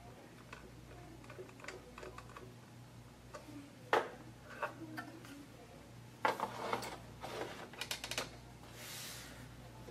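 Light clicks of a small screwdriver on the screws of a metal drive bracket holding a 2.5-inch SSD, a sharp tap about four seconds in as the screwdriver is laid on the wooden tabletop, then a quick run of clicks and clatter as the drive in its bracket is pushed into the notebook's drive bay, ending in a soft sliding rub.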